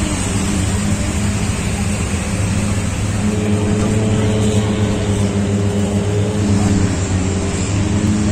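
A motor vehicle engine running with a steady hum amid street traffic noise, a few higher tones joining in about three seconds in.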